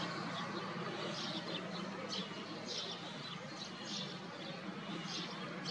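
Small birds chirping: repeated short, high chirps over a steady low background hum.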